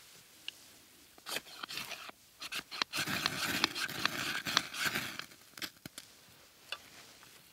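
Knife spine scraped hard down a ferrocerium rod to shower sparks onto a tinder bundle: a few short rasping strikes, then a quick run of scrapes about three to five seconds in, thinning to odd scratches and clicks near the end.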